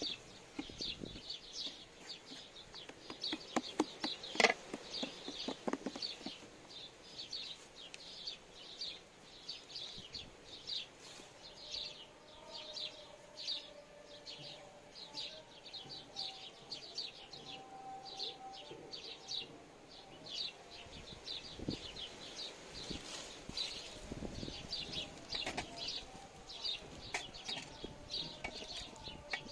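Steady high-pitched chirping from a small creature, about two chirps a second. A few sharp wooden knocks from the rolling pin and board come in the first several seconds, the loudest a little over four seconds in.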